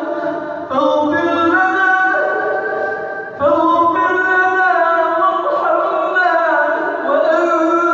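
A solo male voice recites the Quran in the melodic tajweed style, holding long ornamented notes that glide up and down. The phrases break briefly for breath about a second in and again about three and a half seconds in.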